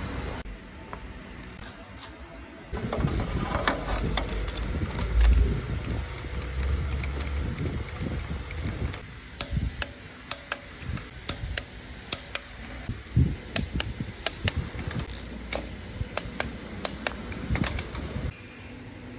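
Irregular metallic clicks, clinks and knocks of hand tools and parts being handled during spark plug work on an engine.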